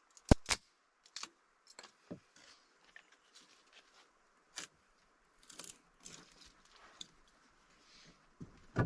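Two sharp clicks near the start, then scattered soft knocks, clicks and rustles of things being handled, with a louder knock near the end.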